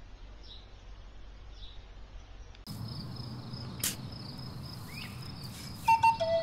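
Insects chirring steadily in dry summer countryside, with a single sharp strike of a hoe into hard dry earth about four seconds in. A flute melody starts near the end.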